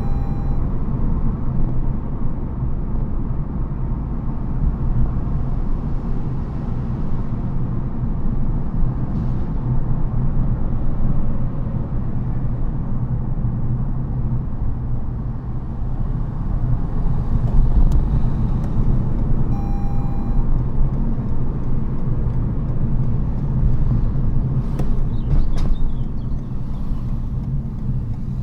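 Road and tyre noise heard inside the cabin of a Toyota Yaris GR Sport hybrid on the move, a steady low rumble. A brief short tone sounds about twenty seconds in.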